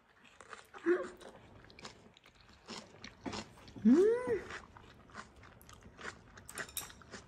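Close-up chewing of a mouthful of pork belly wrapped in napa cabbage, with crisp crunching clicks all through. Two appreciative hummed "mm" sounds come about a second in and around four seconds in, the second rising and falling in pitch.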